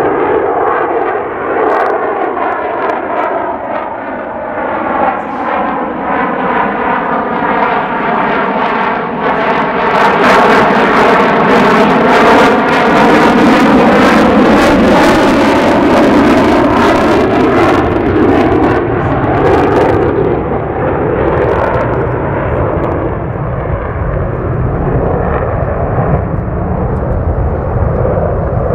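The single afterburning turbofan of an F-35A Lightning II fighter, making a low pass. The jet noise builds to its loudest about a third of the way in, with a sweeping, phasing whoosh as it goes by. It keeps up a steady rumble as the jet climbs away in afterburner near the end.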